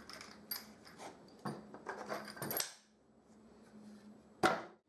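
Steel bolts clinking and wooden strips knocking as a bolted pair of wooden bar-clamp strips is handled and set down on a workbench. Several light clinks and taps come in the first two and a half seconds, then a louder single knock near the end.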